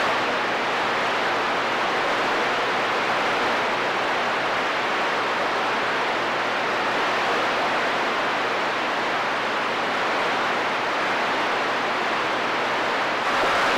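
Steady static hiss from a CB radio receiver between transmissions.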